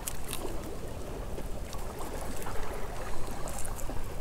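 Shallow seawater trickling and lapping among wet rocks and weed, with a few faint clicks.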